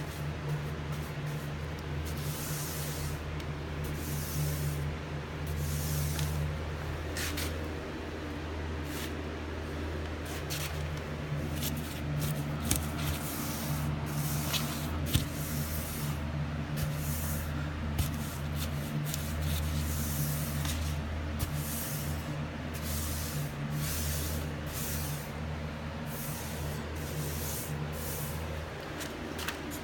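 Paintbrush bristles swishing across wood in repeated strokes as primer is brushed on, about one stroke every second or two at an uneven pace, over a steady low hum.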